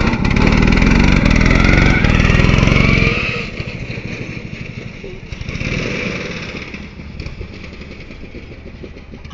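Souped-up riding lawnmower's engine running hard with its pitch rising, then falling off sharply about three seconds in and running on more quietly.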